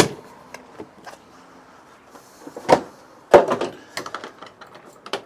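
Plastic latching system of a Draper BUNKER modular rolling tool box clicking as the stacked boxes are locked back together: a few sharp clicks and knocks, the loudest about three seconds in.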